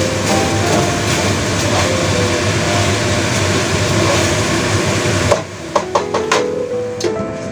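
Eggplant and minced meat sizzling in a wok while a wooden spatula stirs and scrapes through them. About five seconds in, the sizzle stops suddenly and a few sharp knocks follow.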